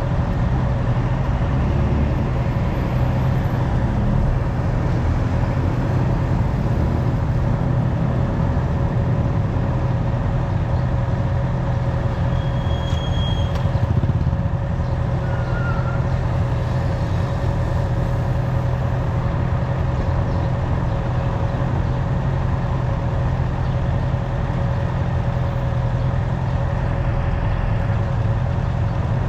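Honda CB650R's inline-four engine running at a steady, unchanging speed, with one slight swell in loudness about halfway through.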